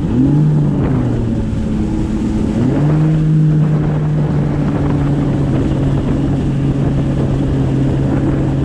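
Yamaha WaveRunner jet ski engine running under way. The pitch eases down just after the start, then picks up again about three seconds in and holds steady at cruising speed, over the rush of wind and water.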